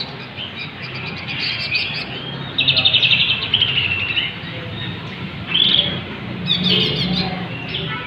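Caged songbirds chirping and calling, with short rapid trills about a third of the way in and again near the end.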